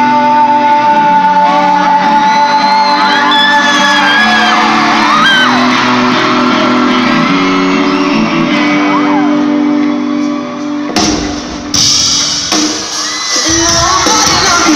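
Live rock band playing long held chords in an arena while the crowd screams and whoops over them. About eleven seconds in the music breaks off, then comes back louder and fuller as the crowd cheers.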